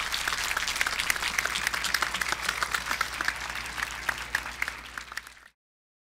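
Audience applauding: many hands clapping at once. It cuts off suddenly near the end.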